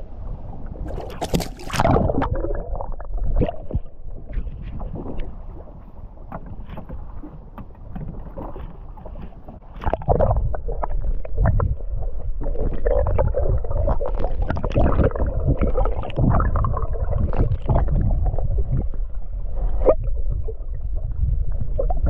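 A splash about a second and a half in as a released walleye goes back into the lake, then muffled water sounds, knocks and a steady low rumble heard through a camera held underwater.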